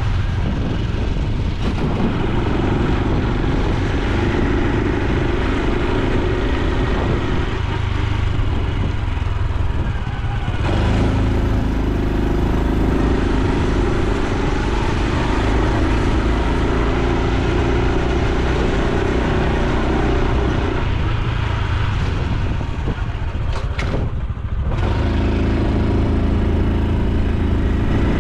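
Honda Super Cub C125's single-cylinder four-stroke engine and exhaust running steadily as the bike rides along. The engine note grows louder about ten seconds in, eases off briefly about three-quarters of the way through, then picks up again.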